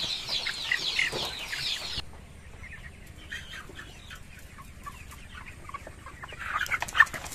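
A flock of young broiler chickens calling, many short peeps and clucks overlapping. The calls drop away about two seconds in and build up again near the end.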